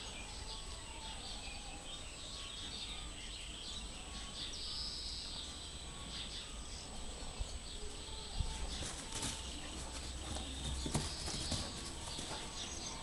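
Two puppies wrestling on grass: scuffling with several sharp, soft knocks between about seven and twelve seconds in. Short high chirps come and go in the background, over a low outdoor rumble.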